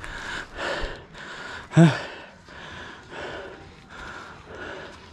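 A mountain biker breathing hard and rhythmically while riding, a steady series of heavy breaths, with one short voiced grunt about two seconds in.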